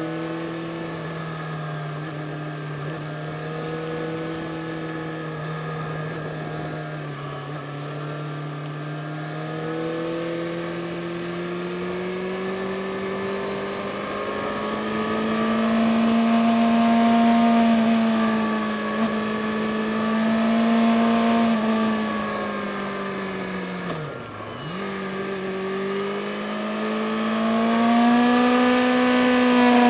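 Yamaha FZ6 Fazer S2's inline-four engine running under load as the motorcycle climbs. Its pitch rises and it gets louder partway through, drops sharply once and recovers about three-quarters of the way in, then climbs again near the end.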